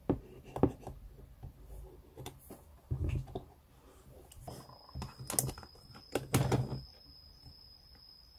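Small clicks, taps and tissue rustling of a screwdriver and tissue being worked over a white Sony mirrorless camera's plastic body while dust is cleaned off it. A faint steady high whine comes in about halfway through.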